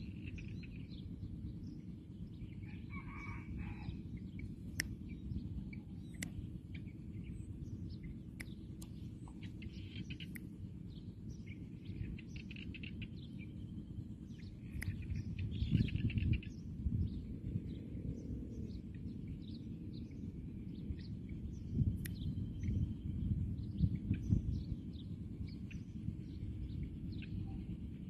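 Caged male watercock (cúm núm) decoy calling in low-pitched bouts, louder about halfway through and again later, with high chirps of other small birds scattered throughout.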